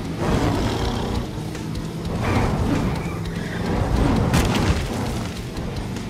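Engine sound effects of animated monster trucks racing, surging and revving several times over background music, with one sharp burst about four seconds in.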